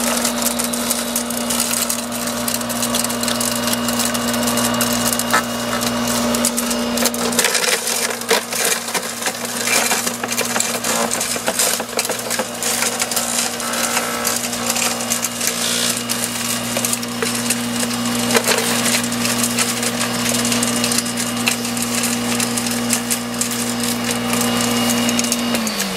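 KAWASHIMA GS2500 electric garden shredder running with a steady motor hum while it chews branches, with continuous cracking and splintering of wood. The motor pitch drops right at the end as it begins to wind down.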